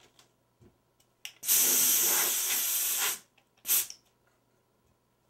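Can of compressed air duster spraying to blow dust off a CRT's glass face. One long hiss of nearly two seconds, then a short puff about half a second later.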